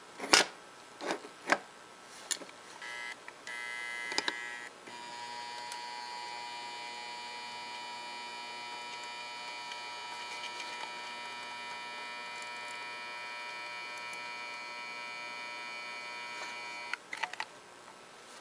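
Transformer-type soldering gun buzzing with its trigger pulled as it heats a heat sink's solder joint: two short buzzes, then a steady mains hum of about twelve seconds. A few sharp clicks come at the start and near the end.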